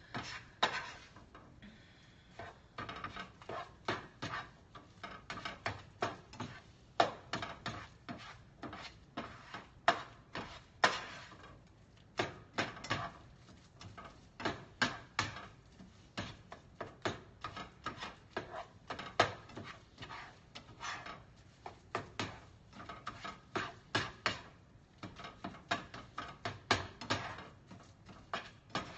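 Plastic spatula scraping and tapping against a skillet as eggs are stirred and scrambled in bacon grease: an irregular run of scrapes and clicks, about one or two a second.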